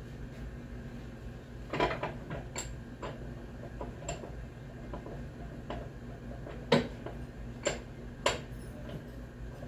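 Irregular metal clicks and knocks from tools and parts handled while working on a treadmill roller's bearings, the loudest a sharp knock about seven seconds in.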